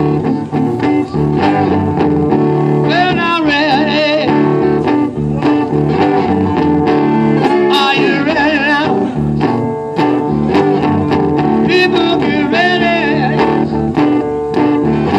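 Acoustic guitar playing a slow, blues-tinged instrumental passage between sung verses, with a wavering melody line rising over the steady chords three times.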